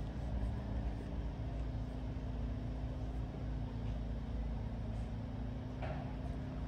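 A steady low mechanical hum and rumble, like a motor running, with a few faint short rustles near the end.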